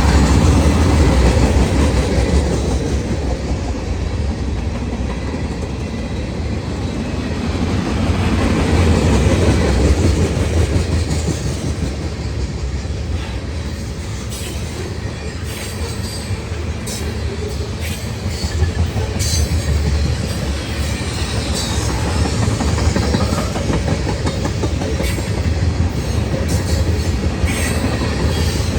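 Norfolk Southern freight cars rolling past: a steady rumble of steel wheels on rail with clickety-clack, swelling and easing as the cars go by. In the second half come many short, sharp clicks and squeaks from the wheels.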